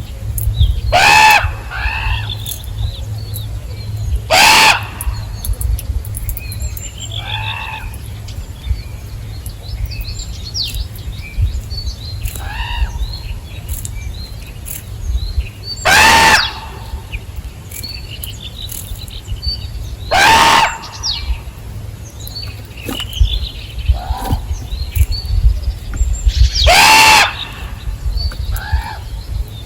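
Birds calling: five loud, harsh calls spaced several seconds apart, with fainter chirps and twitters between them, over a low steady rumble.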